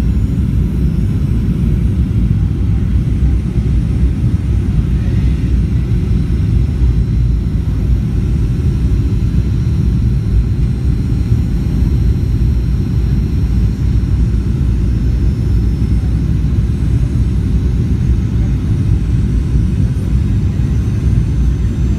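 Steady low rumble of a Boeing 737 airliner's engines and airflow heard inside the passenger cabin during descent on approach, with faint steady high tones over it.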